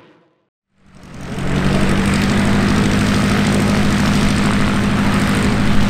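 A light single-engine homebuilt propeller plane's engine running steadily at low taxiing power, with a constant propeller drone. It fades in out of a moment of silence about a second in.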